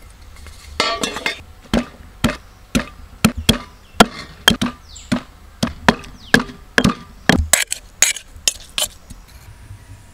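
Stone pestle pounding fresh ginger in a stone mortar, crushing it to a paste: sharp knocks about twice a second that stop about nine seconds in.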